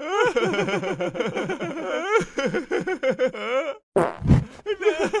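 Cartoon characters laughing heartily in quick repeated bursts. About four seconds in comes a short, low fart sound effect, and the laughter then starts again.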